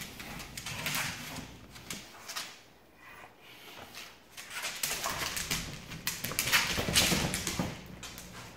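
A boxer's claws clicking and scuffing on a hard plank floor as it moves about playing with a plush toy, with a louder flurry of scuffling from about five to seven and a half seconds in.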